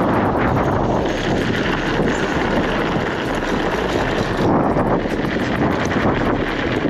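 Wind buffeting the microphone over the oversized fat tyres of a WaltX Dune 1 fat-tire bicycle rolling fast downhill on loose gravel, with many small clicks and rattles from the stones and the bike.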